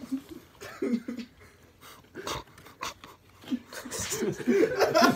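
Young men laughing and chuckling, quietly at first and louder near the end, with a few short clicks of baseball cards being handled.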